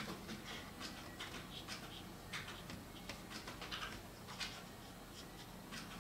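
Brush pen strokes on paper: faint, short hissing swishes coming irregularly, several a second.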